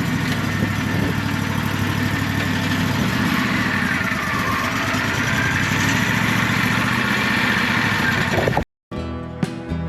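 A portable band sawmill's engine runs steadily, with a whine that dips in pitch about four seconds in and then climbs back. The sound cuts off abruptly near the end, and acoustic guitar music begins.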